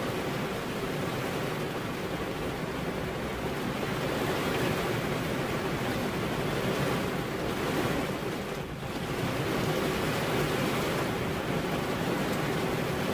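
Steady rain, an even hiss with no separate drops standing out, dipping briefly about nine seconds in.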